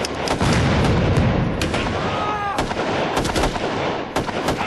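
Battle sound effects: rapid rifle and machine-gun shots cracking one after another, with a heavy low rumble of an explosion or artillery round in the first second and a half.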